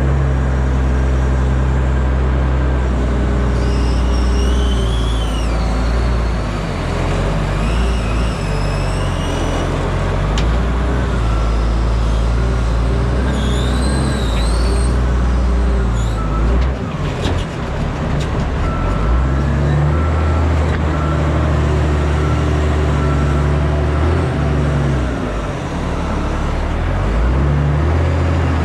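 Diesel engine of a tandem dump truck pulling under load, heard from the cab. The engine note changes pitch and drops out briefly as gears are shifted, with high creaks and squeaks from the cab and a few clicks near the middle.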